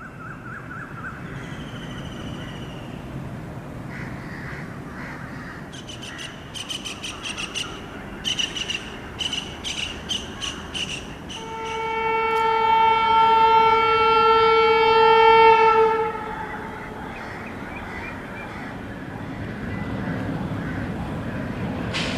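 Indian Railways WAP7 electric locomotive running light with a low rumble, sounding one steady horn blast of about four seconds in the middle. Birds call in quick repeated notes in the seconds before the horn.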